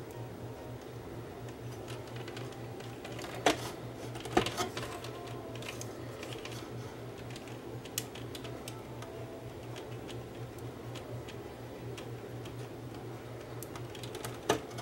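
A few sharp clicks and knocks as a TV power circuit board and its metal bracket are handled during resoldering, two close together a few seconds in and one near the end, over a steady low hum.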